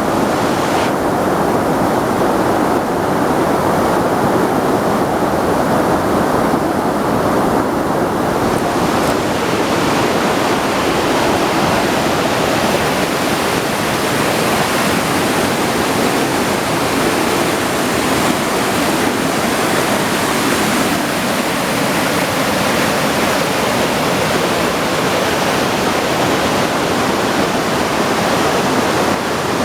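Waterfall and river rapids rushing in a loud, steady wash of water noise, turning brighter and hissier about eight seconds in.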